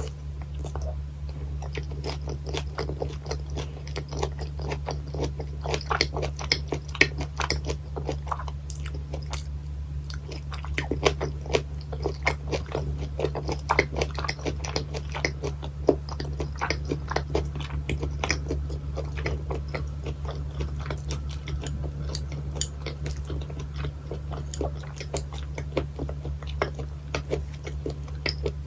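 Close-miked chewing and biting of bone-in sliced gizzard shad sashimi, with many small crunches and wet mouth clicks, over a steady low hum.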